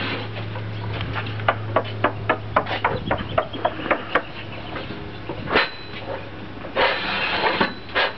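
Metal tripod boat stand being adjusted up against a boat hull: a quick run of sharp metal clicks, about three a second, then a few louder scrapes and rattles near the end, over a low steady hum.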